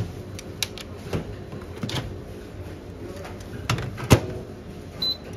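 A 1500 W convenience-store microwave oven being worked by hand: a string of knocks and clunks from its door and handle, the loudest a sharp clunk about four seconds in. A short high beep comes near the end.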